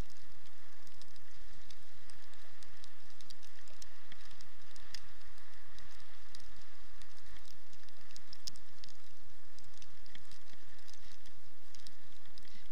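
A sled dog team running on a snow trail, many paws pattering in a quick uneven rhythm over a steady hiss.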